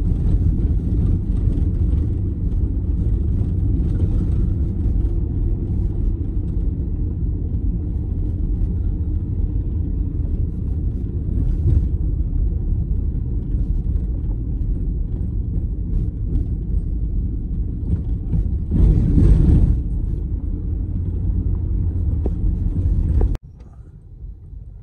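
Steady low rumble of a vehicle driving on a gravel road, heard from inside the cabin: tyre and engine noise. About three-quarters of the way through there is a brief louder surge. Near the end the rumble cuts off suddenly to a much quieter hum.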